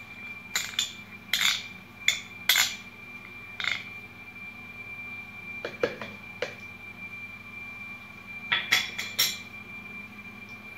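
Spoon and kitchen utensils clinking and knocking against bowls and containers while ingredients are handled: a string of short, separate clinks, bunched near the start and again near the end.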